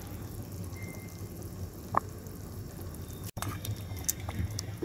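Pot of pork-bone soup with pickled mustard greens simmering, a low steady rumble under small bubbling pops and ticks that come more often near the end. A single light tap about two seconds in.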